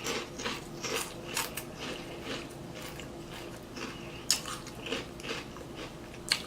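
Close-miked chewing of juicy fruit: irregular wet smacks and clicks from the mouth, a few every second.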